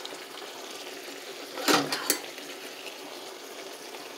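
Pork steaks frying in a pan of melted butter and lemon juice, a steady sizzle and bubbling, with two sharp clicks about halfway through.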